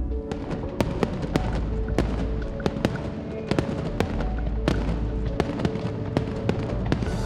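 Aerial fireworks exploding, a rapid irregular string of sharp crackling pops and bangs over low rumbling booms, with background music playing underneath.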